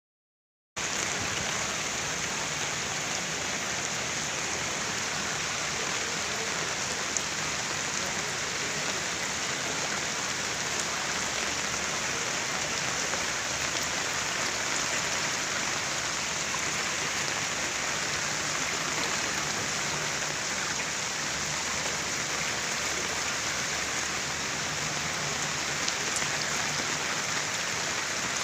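Steady noise of water, rain falling or floodwater running, starting suddenly just under a second in and holding even throughout.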